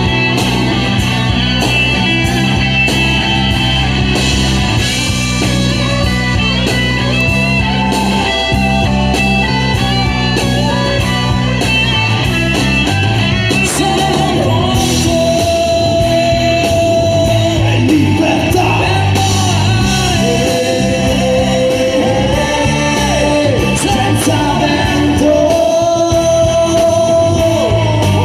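Live rock band playing a song with guitars and singing; a sung voice holding long notes comes to the fore about halfway through.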